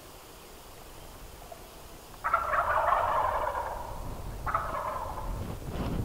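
Eastern wild turkey gobbler gobbling: a loud gobble begins about two seconds in, and a second, shorter one follows a couple of seconds later.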